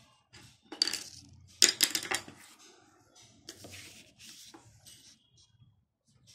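Handling noises as a sheet of drawing paper is shifted and a pencil is moved about on it: rustling and sliding with clattering knocks, loudest about one second and two seconds in, then lighter scrapes and ticks.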